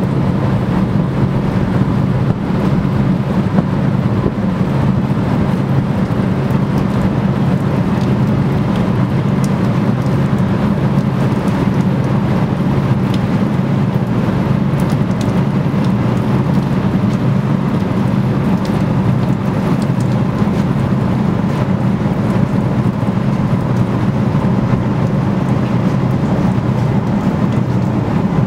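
Motor boat's engine running steadily under way: a loud, constant low drone over a steady hiss.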